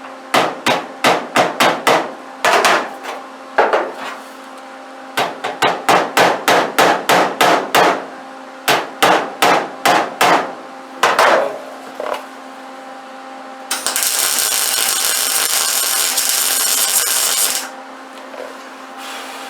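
Runs of sharp hammer taps on a sheet-metal car panel, at about three to four a second, setting the piece down. These are followed by about four seconds of steady crackling hiss from a MIG welder laying a weld.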